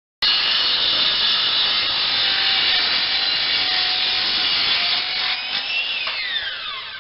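A circular saw cuts through wood on a 15-degree bevel cut with a steady, loud cutting noise. Near the end the motor is released and its whine falls as the blade spins down.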